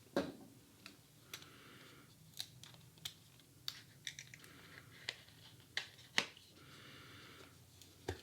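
Paperboard playing-card tuck box being opened and handled: a string of light clicks and taps, with two short papery slides, about a second in and again near the end.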